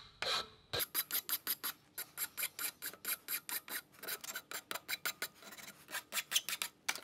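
Hand file rasping over the cut end of a metal pit-bike shift lever, in short quick strokes about three a second, rounding the edges and knocking the corners off.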